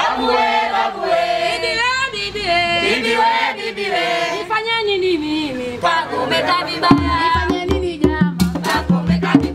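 A group of voices singing together, women's voices prominent. About seven seconds in, hand drums join with a steady beat.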